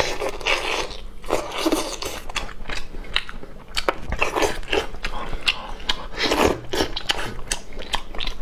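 Close-up mouth sounds of a person eating: chewing and biting, with many quick sharp clicks and crunches.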